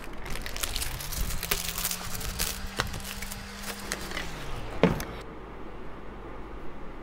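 Plastic shrink-wrap and packaging crinkling and crackling with many sharp ticks as a boxed iron is unwrapped and pulled out of its carton, with a low hum rising in and fading out underneath. The rustling stops about five seconds in, leaving quiet room tone.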